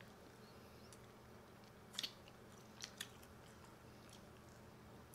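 Close-miked eating of chicken wings: a few short crisp bites and mouth clicks, about two and three seconds in, over a faint steady hum.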